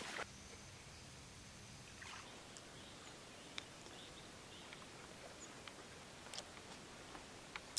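Quiet open-air ambience with a few faint, scattered clicks. The last splash of a footstep in shallow water sounds right at the start.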